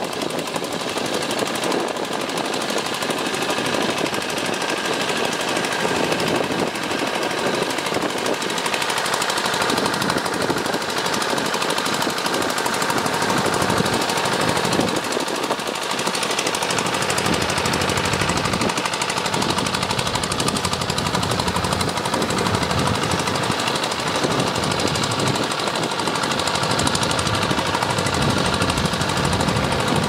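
Rice transplanter's small engine running steadily with a rapid clatter as it works through a flooded paddy.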